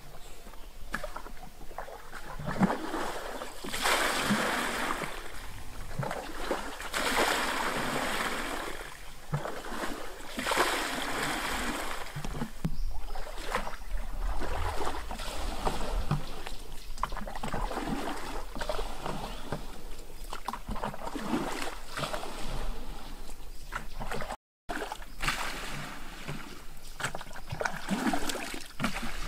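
Irregular splashing and sloshing of muddy water as a plastic bucket and a scoop net are dipped and worked through a shallow mud pond, with small knocks and drips between surges. The sound drops out for a moment about three quarters through.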